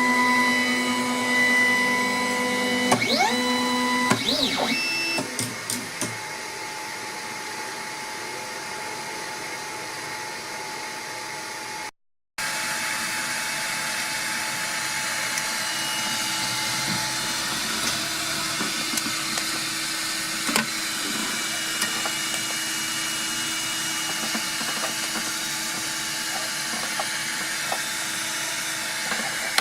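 3D printer running: its stepper motors whine in tones that slide up and down during the first few seconds, then give way to a steady whir of motors and cooling fans with a faint low hum.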